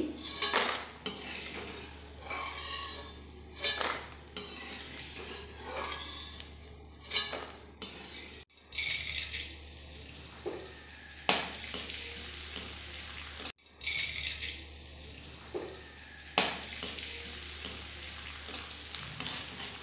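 Gond (edible gum) sizzling as it fries in hot ghee in a kadhai, with a steel slotted spoon scraping and clinking against the pan as it stirs. The sound breaks off sharply twice for a moment.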